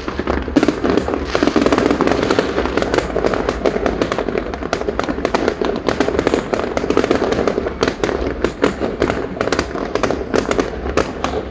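Fireworks display: a dense, unbroken crackle of many small bursts and pops.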